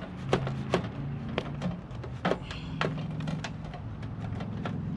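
Irregular sharp clicks and knocks of plastic and metal parts being handled and fitted as a window air conditioner's side curtains and fasteners are put back on, over a steady low hum.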